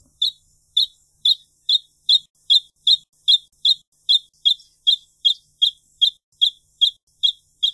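Wrentit singing: a long, even series of short, high, clear notes, about two and a half a second, each at much the same pitch.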